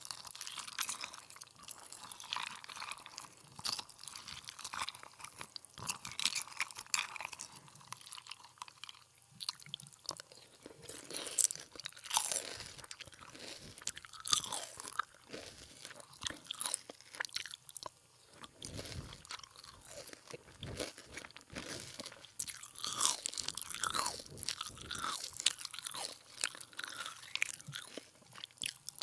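Close-miked mukbang eating: crunchy food being bitten and chewed, with irregular crisp crunches throughout.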